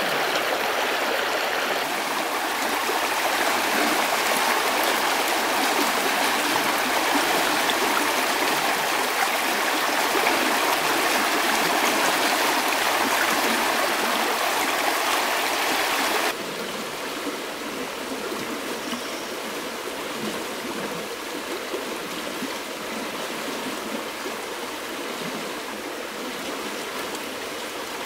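Shallow stream rushing and babbling over river stones in a steady wash of water noise. It drops suddenly to a softer rush a little past halfway through.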